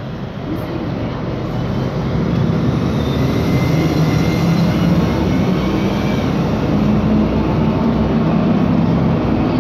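Mercedes-Benz Conecto G articulated bus's rear-mounted OM457LA turbo-diesel engine and running gear heard from inside the passenger cabin while under way. The engine note gets louder about two seconds in and then rises slowly in pitch as the bus picks up speed.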